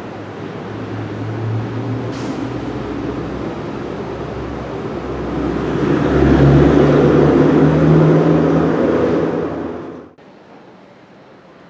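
A vehicle's engine running and growing louder as it comes close, its pitch rising, then the sound cuts off abruptly about ten seconds in.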